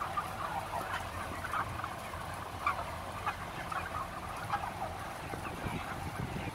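A dense flock of broiler chickens giving many short, overlapping calls, over the steady low hum of the barn's large exhaust fans.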